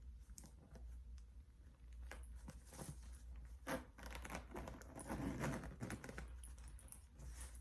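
Faint rustling and crinkling of a handbag's paper stuffing as the bag is opened and handled, with scattered light clicks and taps.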